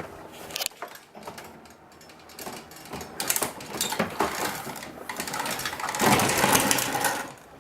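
Rapid mechanical clicking and clattering of hand tools, building into a louder, denser clatter for about the last second and a half.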